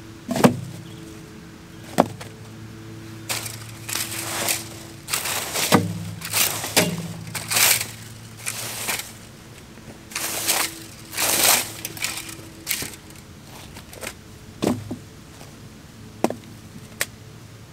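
Leaf rake dragged in quick strokes through dead leaves, grass clippings and sticks, a run of short scraping rustles, with a few sharp knocks, the loudest two near the start.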